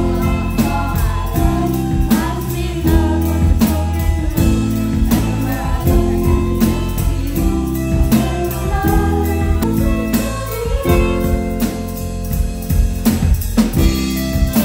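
A live rock band playing: drum kit with cymbals keeping a steady beat under electric guitars, bass and keyboard.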